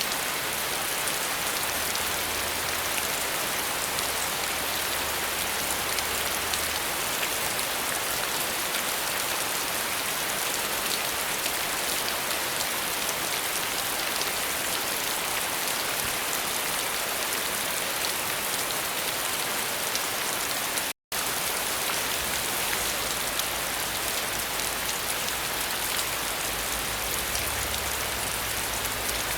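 Steady rain, an even dense hiss of many drops falling on surfaces. The sound cuts out completely for a split second about two-thirds of the way through.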